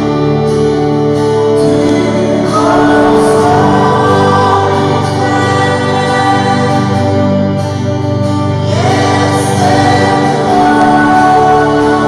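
Live worship song: a woman singing into a microphone over electric keyboard and small guitar, her voice sliding up into a held high note twice.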